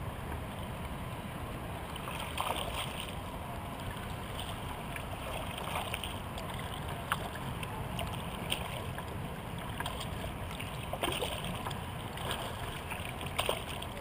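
Kayak being paddled on calm water: irregular splashes from the paddle blades and water lapping at the plastic hull, over a steady low rumble.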